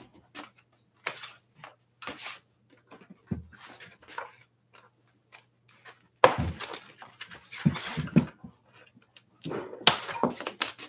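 Protective plastic packaging being pulled off an e-bike's frame, rustling and crinkling, with scattered knocks and clicks. The louder rustling comes in two stretches, about six seconds in and near the end.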